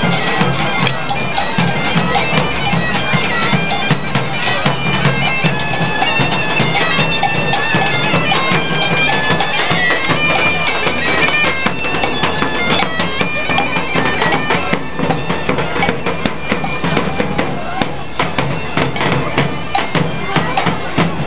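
Bagpipes playing a melody over a steady drone, with drums beating along. About fifteen seconds in, the pipe melody fades back and the drumbeats come to the fore.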